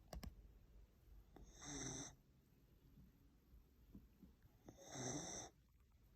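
Whippet snoring in its sleep: two snores about three seconds apart, each lasting around half a second.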